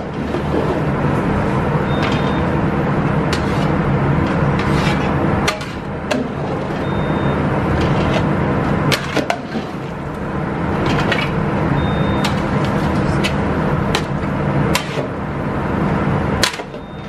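Long metal ladle stirring meat and onions in a large aluminium stockpot, scraping and knocking against the pot now and then, over a steady, loud roar of commercial kitchen equipment with a low hum.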